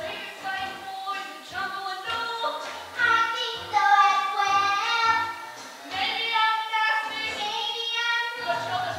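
Young female voices singing a show tune with instrumental accompaniment, with several long held notes.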